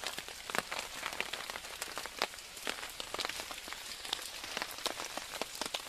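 Steady rain, with many irregular drops tapping sharply on the tarp overhead.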